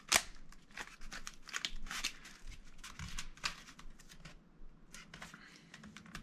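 Cardboard and tape being handled and pressed into place: irregular crinkling and scraping strokes, with a sharp tap at the start and a brief lull a little past the middle.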